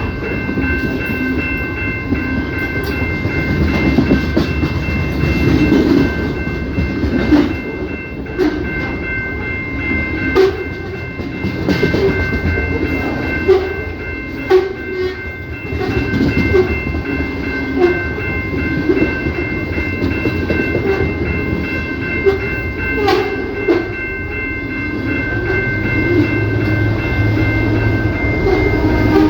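CPKC train rolling past, its railcars rumbling with sharp wheel clacks over rail joints and a steady high whine underneath.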